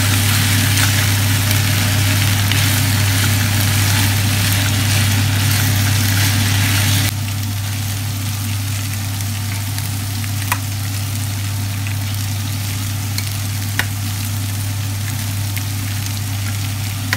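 Chicken livers sizzling in a frying pan while being stirred, over a steady low hum. About seven seconds in the sizzle drops quieter, and two short clicks come later as raw eggs are cracked into the pan.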